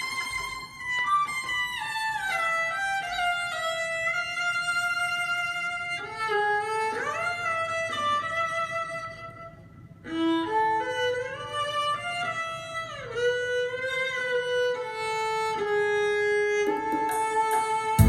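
Recorded music played back through a pair of Spendor BC2 bookshelf loudspeakers: a solo violin carries a slow melody with slides between notes. It fades about halfway through, then comes back in.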